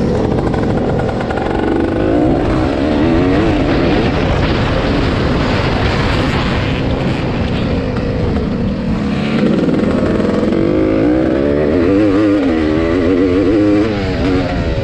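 Yamaha YZ465 two-stroke single-cylinder motocross engine heard from the rider's helmet, running hard under race load. Its pitch rises and falls in repeated waves as the throttle is opened and backed off.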